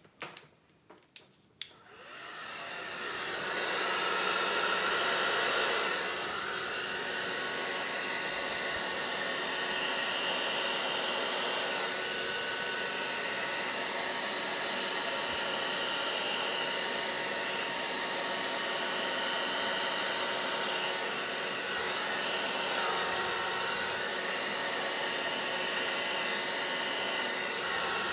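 Hair dryer on low fan with cool air, blowing poured acrylic paint out into a bloom. After a few clicks it starts about two seconds in, runs a little louder for a few seconds, then settles to a steady blowing from about six seconds in.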